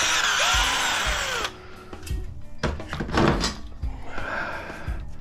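Power drill running in bursts, driving or backing out screws in an aluminum shower-door frame: one long run for about the first second and a half, then shorter bursts later.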